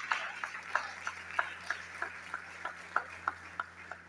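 Audience applause settling into a steady clapping beat of about three claps a second, slowing slightly and fading out toward the end.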